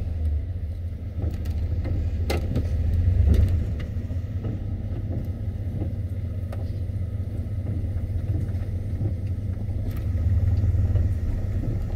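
A 1996 Chevy's engine running just after being started, heard from inside the vehicle. Its low hum swells louder briefly about three seconds in and again near the end.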